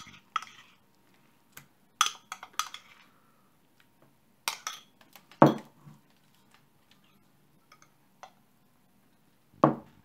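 Scattered clinks and knocks of a stainless steel bowl and a ceramic bowl being handled as masala paste is spooned onto sardines, some knocks followed by a brief ring from the steel bowl. The loudest knocks come about five and a half seconds in and near the end.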